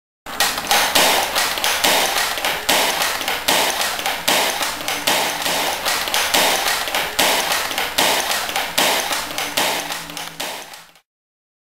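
A long run of sharp taps, about three or four a second, slowly growing fainter and then stopping.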